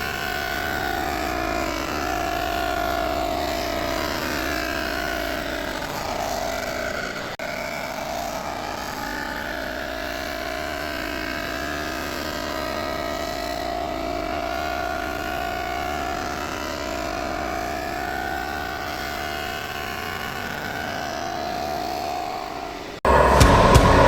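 Cylinder head surfacing machine running as it cuts an aluminium cylinder head: a steady machine hum whose pitch wavers slowly. About a second before the end a much louder sound cuts in abruptly.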